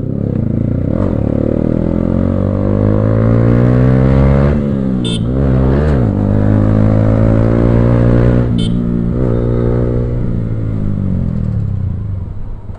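Yamaha R15M's 155 cc single-cylinder engine through an aftermarket Akrapovic exhaust, accelerating through the gears. The pitch climbs, drops and climbs again about five seconds in, then falls as the throttle is rolled off near the end.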